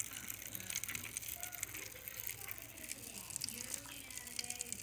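Bath crackles popping: a faint, irregular crackle of many tiny pops.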